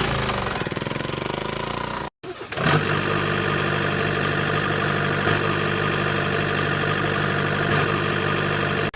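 Vehicle engine running with a fast, even pulse. It cuts out for a moment about two seconds in, then comes back as a steady idle with a strong low hum, and stops suddenly at the end.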